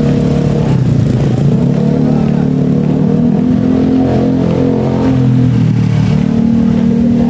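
Engines of motor vehicles running close by, their pitch shifting up and down.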